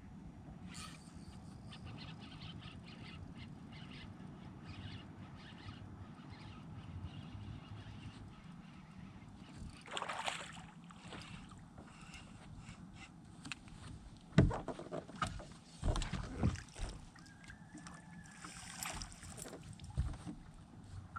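Handling noise in a fishing boat: scattered clicks and rattles over a low steady background, then a few sharp knocks on the boat in the second half, the loudest one about two thirds of the way through.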